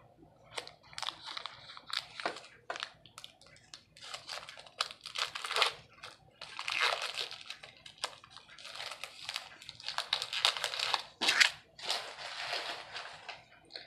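A foil trading-card pack wrapper being torn open and crumpled by hand: irregular crinkling and tearing in bursts with short pauses.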